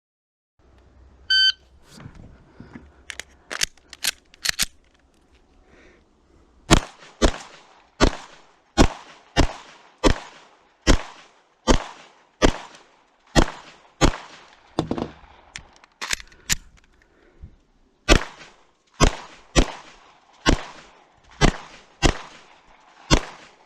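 A competition shot timer gives a short high beep, then a pistol fires some two dozen shots, the first few quieter, the rest loud and spaced half a second to a second apart, with a short break about two-thirds of the way through. The last shot comes about 21.8 seconds after the beep, the stage time called afterwards.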